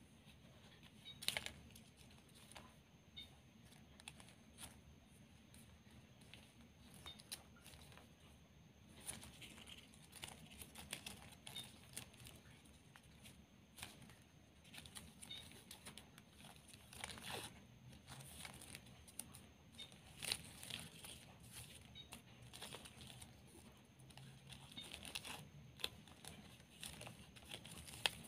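Faint rustling and crinkling of white ribbon strips as they are handled and woven together by hand, with scattered sharper ticks and crackles. The loudest come about a second in and near the end.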